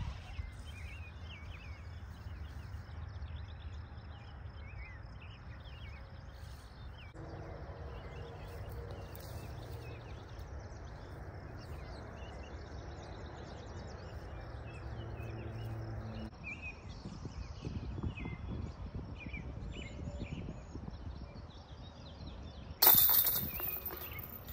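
Outdoor ambience of birds chirping over a low rumble. Near the end a disc hits a disc golf basket's chains with a sudden loud metallic jangle that rings briefly.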